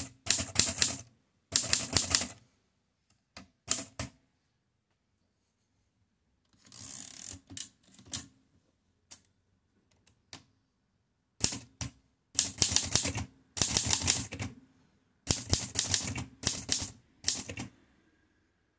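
A 1943 Erika 5 Tab portable typewriter being typed on: quick runs of sharp keystroke clacks as the typebars strike the platen. The typing pauses near the middle, with a few single strokes and a short rasp, then resumes in a long fast run.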